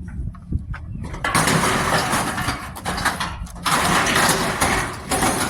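Truck engine running with a steady low rumble, broken by two loud stretches of rushing noise, each about a second and a half long.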